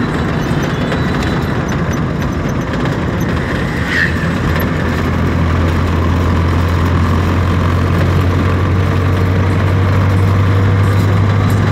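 Car engine and road noise heard from inside the cabin while driving, a steady drone that grows somewhat stronger about four seconds in, with one short sharp sound just before that.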